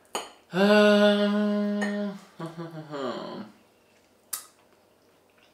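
A person humming a long, steady-pitched 'hmmm' while weighing a verdict, then a shorter hum that falls in pitch.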